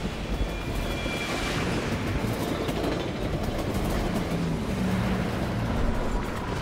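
A train passing close by: a steady, dense noise of carriages and wheels on the rails.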